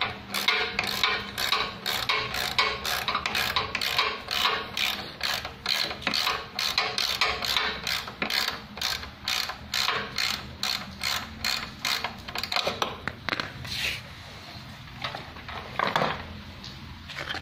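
Ratcheting metallic clicks, about two or three a second, from hand work at the pulley end of a sewing-machine servo motor during installation. They stop about fourteen seconds in, with a couple more near the end.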